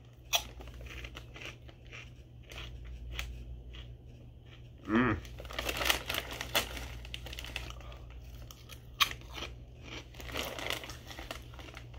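Chewing and crunching a Doritos 3D Crunch corn snack: irregular crisp crunches, with a short vocal hum about five seconds in. The snack bag crinkles near the end as a hand goes into it.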